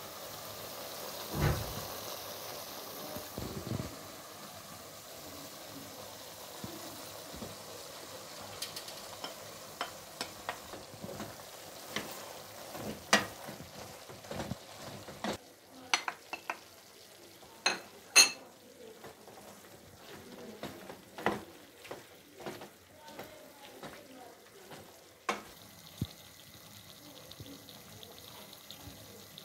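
Diced beef and chopped onion sizzling as they fry in a nonstick pot, with a wooden spoon stirring and knocking against the pan in sharp, irregular taps.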